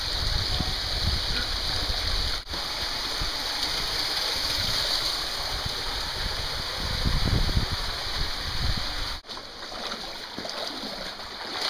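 Steady rush of a mountain creek below a waterfall, with a low rumble underneath. The sound breaks off abruptly twice, and the rumble is gone after the second break, about nine seconds in.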